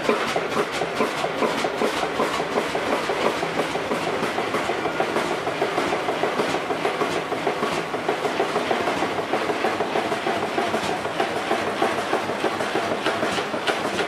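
1929 Fairbanks Morse two-cylinder, 5,000-cubic-inch stationary engine running steadily without load: a fast, even clatter of ticks and knocks.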